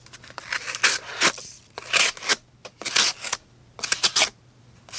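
Folding knife with a thick-spined D2 steel blade cutting through cardboard in four strokes, about one a second.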